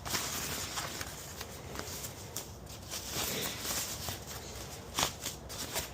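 Small clicks and rustles of hands working on a motorcycle fairing as the second speaker grill is undone, over a steady background hiss.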